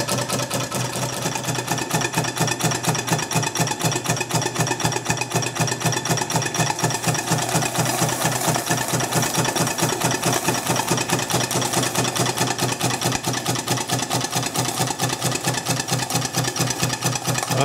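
Markie live-steam model plough engine running slowly with a steady, even ticking from its cylinder and valve gear, on low steam pressure of about 20 PSI with the throttle hardly open.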